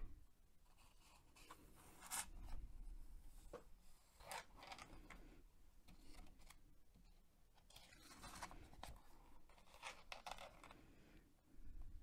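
Pages of a paperback sticker activity book being turned and handled: soft paper rustles and brushing in several short spells.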